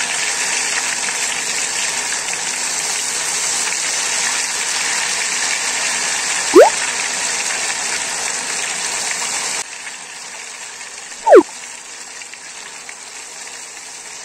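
Cold ghewar batter poured in a thin stream into very hot ghee, sizzling and bubbling with a steady hiss that drops to a quieter level a little past halfway. Two short, sharp whistle-like glides cut through it: one rising about six and a half seconds in, one falling about eleven seconds in.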